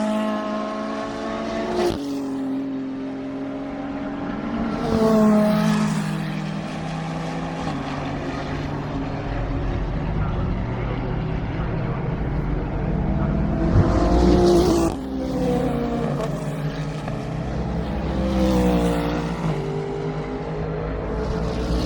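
Race cars passing at speed, one after another, their engine notes rising as each approaches and falling away as it goes by. The loudest passes come about five seconds in, around fourteen to fifteen seconds in, and near nineteen seconds in, with other cars audible in between.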